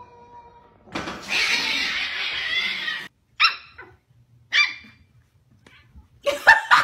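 A puppy yapping: two short, sharp yips, then a rapid run of barks near the end. Before them, a loud rushing noise lasts about two seconds and cuts off suddenly.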